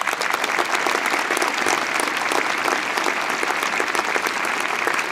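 Large audience clapping steadily, applause that rises just before and holds at an even level.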